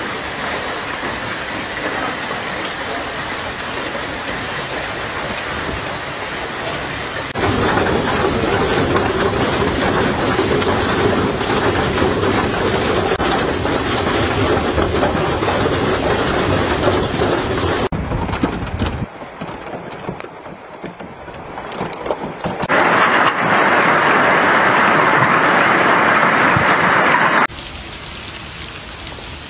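Hail and heavy rain pelting down as a dense, steady noise. Its loudness and tone change abruptly several times where separate recordings are spliced together, and it is quieter near the end.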